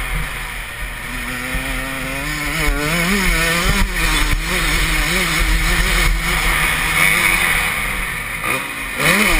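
Dirt bike engine being ridden hard, its pitch rising and falling again and again with the throttle, under a steady rush of wind noise on the bike-mounted microphone.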